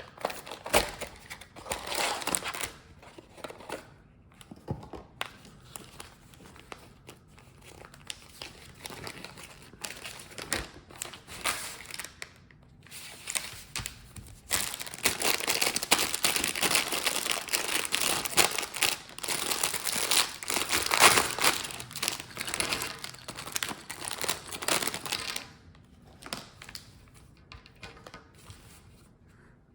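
Cardboard Lego box punched open at its thumb tab and the packaging inside handled: short bursts of crinkling and tearing, then a long stretch of steady crinkling through the middle.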